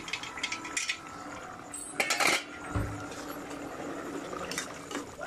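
Aluminium pot lid lifted off a pan and set down, with light metal clinks and one louder clatter that rings briefly about two seconds in.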